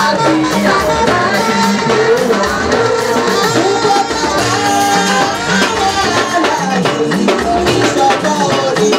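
Church choir singing an anthem into microphones, many voices together, over a band with drums and shaken percussion keeping a steady beat.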